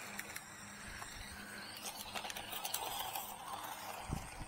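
HoSpeed HS 18323 1/18-scale RC car driving across a mowed lawn: its small electric motor runs with a faint whir, under light ticks and rustling.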